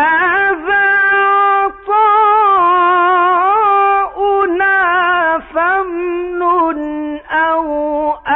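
A man's voice chanting Quran recitation in the melodic, melismatic mujawwad style, holding long high notes with ornamental turns, with short breaks between phrases.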